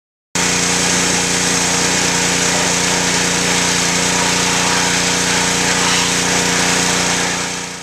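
A small engine or power tool running at a steady speed, starting abruptly and dying away near the end.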